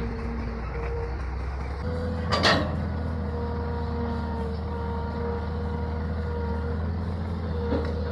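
Excavator's diesel engine running steadily, its tone shifting slightly about two seconds in, with one short loud burst of noise about half a second later.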